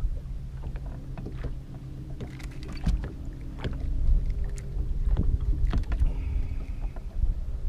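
Wind rumbling on the microphone aboard a fishing boat, with a steady low hum underneath and scattered light clicks and taps.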